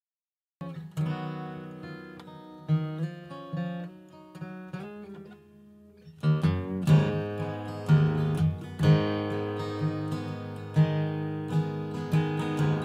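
Acoustic guitar music: a song intro of plucked notes that opens out into fuller strumming about six seconds in.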